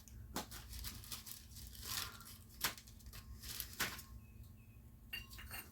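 Small plastic bag crinkling as small engine parts are handled and put into it, with a few sharp ticks.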